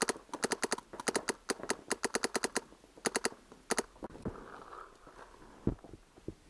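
Electronic paintball marker, an Empire Axe, firing rapid strings of shots at about ten a second in several bursts. The firing stops after about four seconds, and a single soft thump comes near the end.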